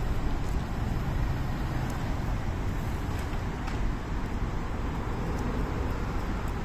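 Steady low rumble of outdoor background noise, with a few faint ticks scattered through it.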